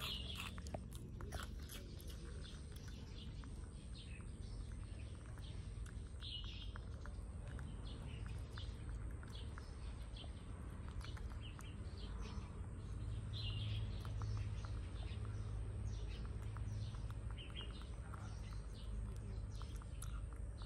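A baby monkey eating, with small wet chewing and lip-smacking clicks throughout and short high chirps every few seconds.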